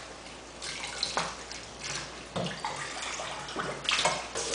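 Water running from a kitchen faucet into a stainless steel sink, splashing unevenly as a hookah's ice chamber is turned and rinsed under the stream.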